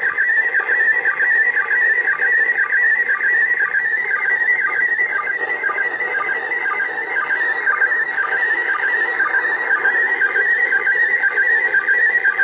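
Slow-scan TV (SSTV) picture signal from the International Space Station on 145.800 MHz, heard through a radio's speaker: a continuous high, warbling tone broken by short lower sync beeps about twice a second, each beep starting a new scan line. The signal is strong and clean, decoding into a near-perfect picture.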